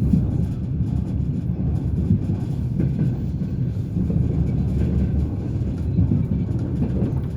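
Passenger train's wheels running on the rails: a steady low rumble with occasional sharp knocks as the wheels clatter over the rail joints.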